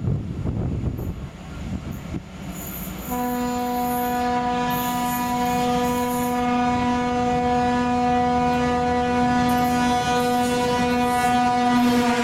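M62 diesel locomotive sounding one long, steady horn blast that starts about three seconds in and is held for about nine seconds, over the low rumble of its engine as it approaches.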